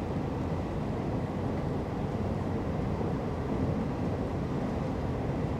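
Taiwan Railway train running, a steady low rumble.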